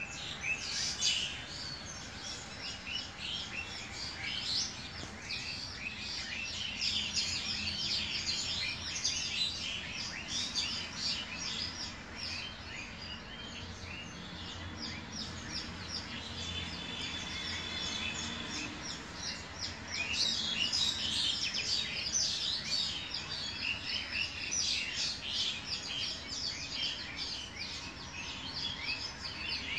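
Sliced onions and whole spices frying in hot oil in an aluminium karahi, a dense sizzle and crackle of spitting oil. The crackling grows busier about twenty seconds in.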